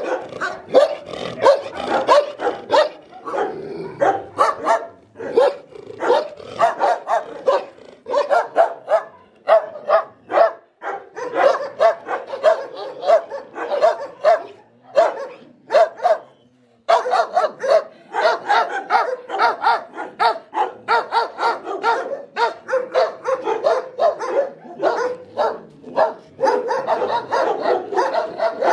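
Several dogs in shelter kennel runs barking over and over, many barks overlapping, with a brief pause about halfway through.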